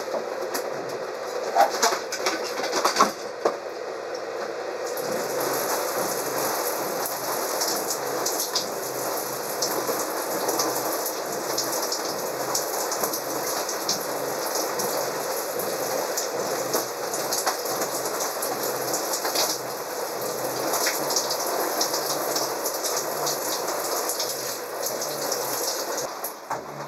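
Shower running in a small RV bathroom: water spraying and spattering steadily, after a few knocks and clatters in the first three seconds. The spray dies down near the end.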